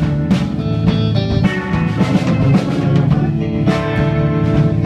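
Live band playing an instrumental passage between sung lines: drum kit and bass keeping a steady beat, with electric guitar, pedal steel guitar and Hammond organ holding notes over it.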